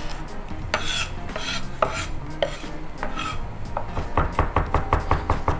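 A heavy chef's knife grinding minced garlic and kosher salt into a paste on a wooden cutting board, the blade scraping across the board in separate strokes. From about four seconds in it turns to quick chopping on the board, about six strokes a second.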